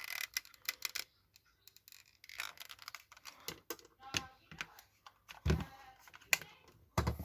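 Irregular light clicks and taps from hands working a hot glue gun against a metal jar lid and plastic pipe, with two duller knocks late on.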